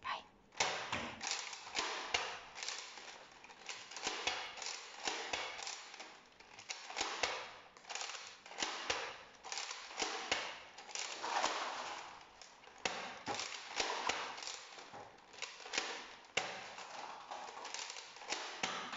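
A Nerf foam-dart blaster firing again and again, a sharp clack and pop with each shot, with foam darts landing on a tile floor.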